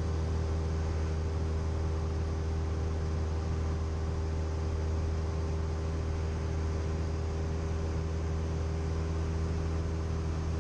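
Cessna 172M's four-cylinder Lycoming engine and propeller running steadily in flight, a constant even drone heard inside the cabin.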